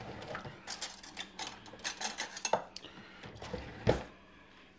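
Metal cutlery clinking and rattling while a bigger spoon is fetched, a quick run of clatters followed by one sharper knock about four seconds in.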